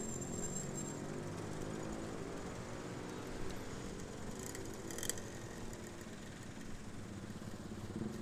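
Motorcycle engines idling and running at low speed in a dense pack of slow-moving motorcycles: a steady low hum, with a few short clicks about halfway through.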